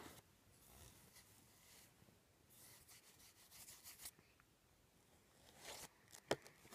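Near silence, with faint rubbing of fingers on the pages of a cardboard touch-and-feel book. Near the end comes a louder rustle and click as a page is turned.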